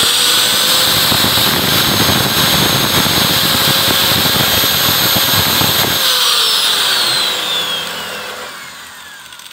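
Angle grinder with a thin cutting disc running at a steady whine while cutting the keeper groove into the stem of an engine valve that spins in a bench drill. About six seconds in it is switched off and the whine falls in pitch as the disc winds down.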